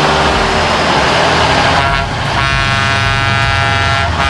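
Truck engine running with a steady low rumble, and a truck air horn sounding about two seconds in: a brief toot, then a longer blast of about two seconds.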